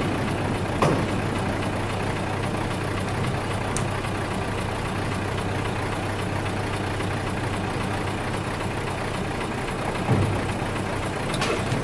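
Diesel engine idling steadily, with a short knock about a second in and a low thump near the end.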